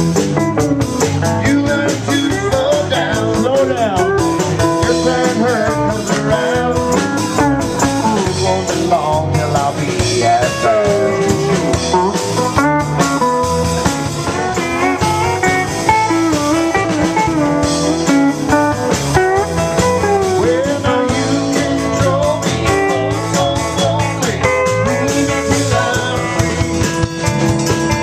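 A band playing blues-rock, led by guitar with a steady beat, with bending, sliding melody lines.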